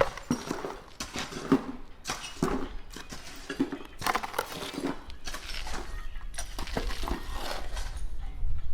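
Irregular knocks, clinks and scrapes of construction debris being handled and moved, with a low rumble building near the end.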